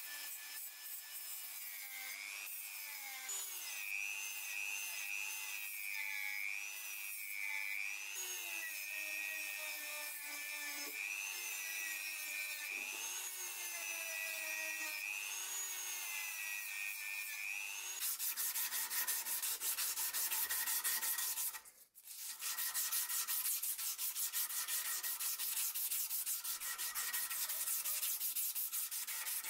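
Handheld rotary tool with a sanding drum grinding and polishing a forged steel rebar slingshot fork; its high motor whine dips in pitch and recovers again and again as the drum is pressed onto the metal. About two-thirds in, a louder, even rasping takes over, with one brief break.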